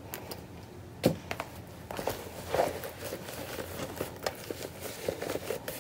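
Leather pouches being handled and pushed into a larger zip pouch: soft rustling with scattered light clicks and taps of metal hardware, one sharper click about a second in.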